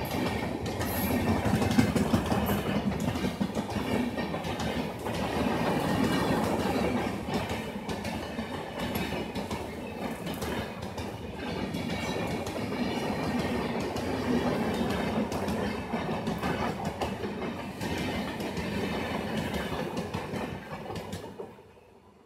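Rajdhani Express LHB passenger coaches passing fast: a steady rumble with rapid clicking of wheels over the rail joints, which dies away quickly near the end as the last coach goes by.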